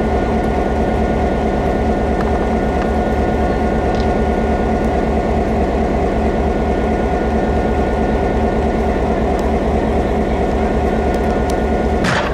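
Train's engine running steadily at a standstill, a continuous low drone with a faint steady whine above it.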